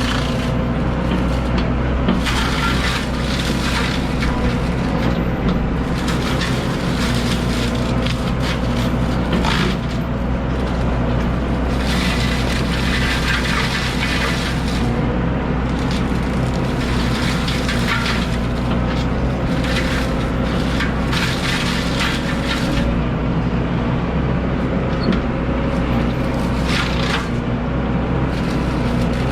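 Excavator engine running steadily under load while a forestry mulcher head shreds brush and wood, with repeated bursts of crunching and cracking as the drum chews through material.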